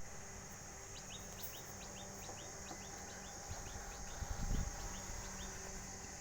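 A bird calling a quick, even series of short chirps, about two or three a second, over a steady high hiss and a low hum. A low rumble comes about four seconds in.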